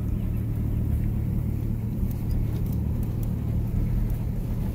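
A car driving slowly on a gravel road, heard from inside the cabin: a steady low rumble of engine and tyres, with occasional faint ticks.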